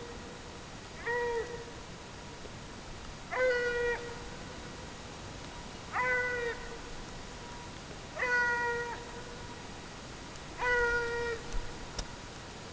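Ariégeois scent hound baying on a hare's trail: five drawn-out bays, each under a second, about every two and a half seconds, each held on one pitch and dropping at the end.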